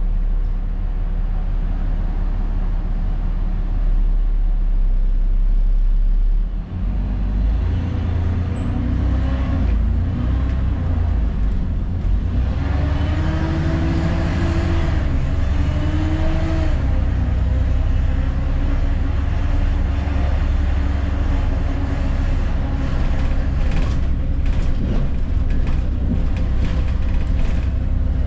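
ADL Enviro400 double-decker bus engine running at a steady low rumble, then pulling away about seven seconds in, its note rising and falling as the bus accelerates. A few sharp clicks or rattles come near the end.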